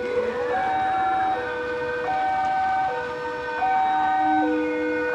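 Railway level-crossing warning alarm from a loudspeaker on the crossing pole: an electronic two-tone signal switching back and forth between a higher and a lower note, each held for a little under a second. It sounds because a train is due and the crossing is closed.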